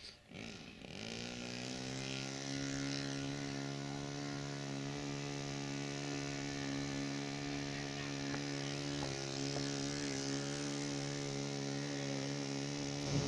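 Ringmaster control-line model plane's small two-stroke engine running steadily on the ground, coming up in the first second or two and then holding a constant, high pitch.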